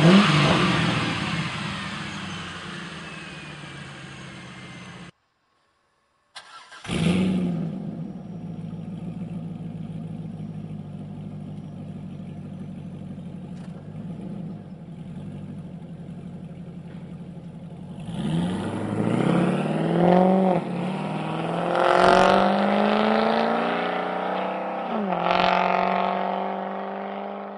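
Chevrolet Corvette C5's 5.7-litre V8 through an aftermarket stainless exhaust. It revs and falls back toward idle, then after a break starts with a flare of revs and settles into a steady idle. Later it accelerates hard away, the revs climbing and dropping sharply three times as it shifts up.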